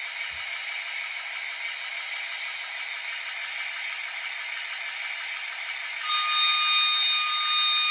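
Model littorina railcar running slowly along the track with a steady rattly noise. About six seconds in it gets louder and a high, steady whistle-like tone joins it and holds on.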